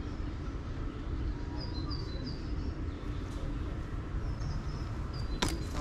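Small birds chirping in short, high notes over a steady low rumble, with one sharp click near the end.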